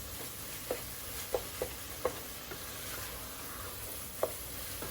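Ground turkey taco filling sizzling in a pot, with several short knocks of a spoon against the pot as it is stirred.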